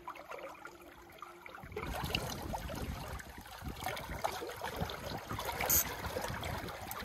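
Water lapping and splashing against the hull of a small boat at sea, getting louder about two seconds in.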